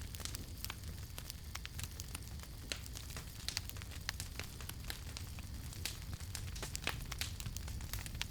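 Wood fire crackling: many sharp pops and snaps at irregular intervals over a steady low rumble of burning.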